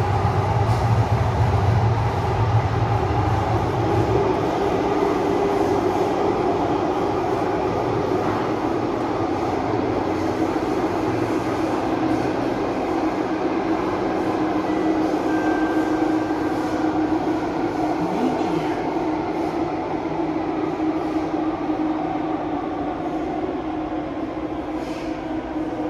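Metro train of Singapore's Thomson-East Coast Line running, heard from inside the carriage: a steady rumble and hum of wheels on rail and traction motors. A deep hum fades after about four seconds, and the whole sound slowly gets quieter toward the end.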